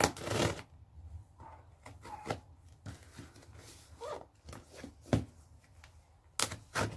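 Scissors cutting through packing tape and cardboard on a heavily taped parcel, with the tape and box torn and pulled open by hand: a run of short rips, snips and scrapes, the loudest a ripping burst right at the start.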